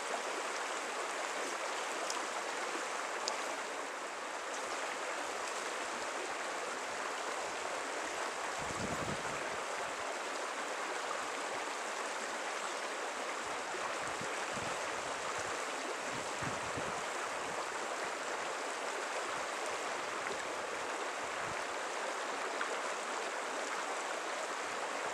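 Small creek water running with a steady rushing sound. A few brief low rumbles come through, about a third of the way in and again just past the middle.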